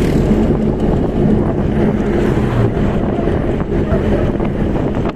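Wind buffeting the microphone over the steady low rumble of a moving road vehicle.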